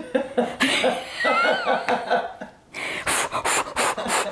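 Women's laughter: a run of quick pulsing laughs with a short high squeal rising and falling, then quick breathy laughs, about five a second, near the end.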